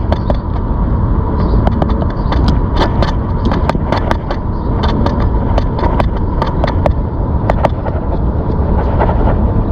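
Wind rumbling on the microphone and tyre noise from a ZOOZ electric bike on the move, with many light irregular clicks and rattles and a faint steady whine.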